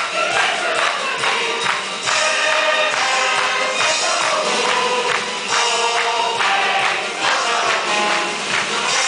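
Upbeat music with singing voices and a tambourine-like jingle.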